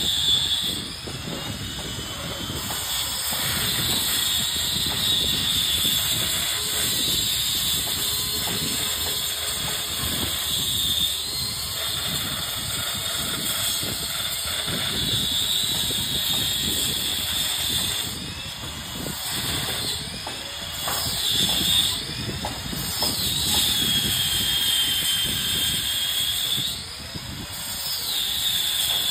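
Handheld angle grinder cutting a chase into a brick wall for electrical wiring. Its high motor whine sags in pitch as the disc bites into the brick and climbs back when the load eases, several times, over a steady grinding noise from the cut.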